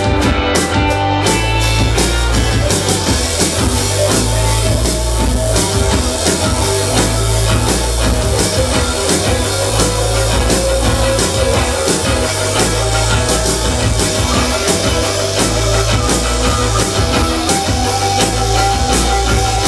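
Rock band playing live: electric guitar over drums, loud and continuous.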